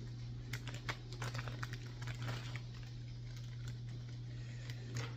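Irregular light clicks and taps of small plastic RC crawler kit parts being handled, as the light bars and their wiring are fitted, over a steady low hum.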